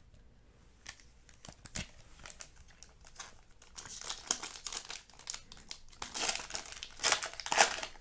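Foil wrapper of a 2007 Bowman Chrome baseball card pack crinkling and tearing as it is opened by hand. A few scattered small clicks and rustles come first, and the crinkling grows louder about halfway through.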